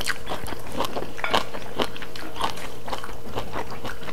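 Several people eating a meal: chewing and biting, with many short, irregular clicks, smacks and light crunches.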